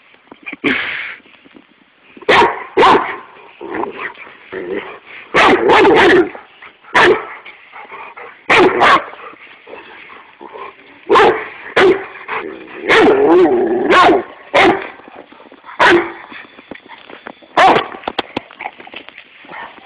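A dog barking at a rhino beetle: a dozen or more short, sharp barks at irregular intervals, some coming in quick runs.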